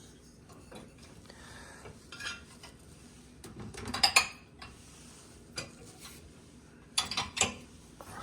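Dishes and cutlery clinking and knocking as they are handled out of a dishwasher rack: a few separate clinks, the loudest about four seconds in and two more close together near the seven-second mark.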